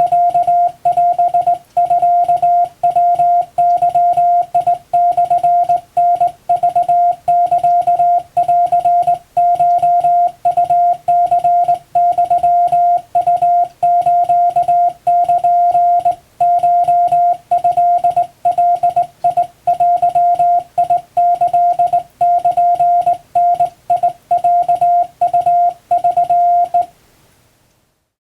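Hand-keyed Japanese (wabun) Morse code: a single steady tone switched on and off in quick dots and dashes, stopping about a second before the end.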